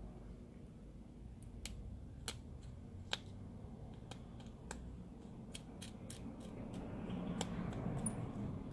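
Light, scattered clicks and ticks of small metal tools on the phone's tiny screws and brackets, about a dozen sharp taps spaced irregularly, as screws are set back into an opened iPhone X.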